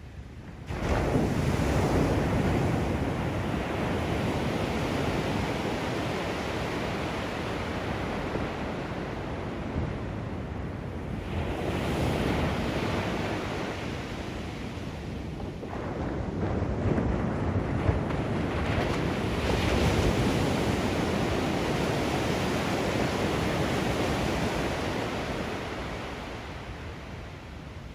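Ocean surf breaking on the beach: waves crash and wash in with a rushing roar, surging sharply about a second in, swelling again twice, then fading near the end.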